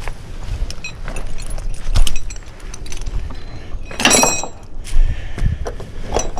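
Scattered knocks and metallic clinks, with a brighter ringing clink about four seconds in and low thumps in between.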